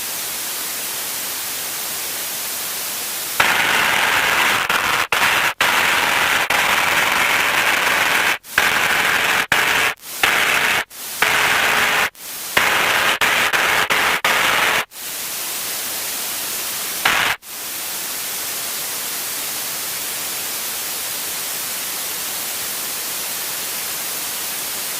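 Steady static hiss on a light aircraft's cockpit intercom audio. From about three to fifteen seconds in, a louder rushing noise takes over and cuts out sharply several times.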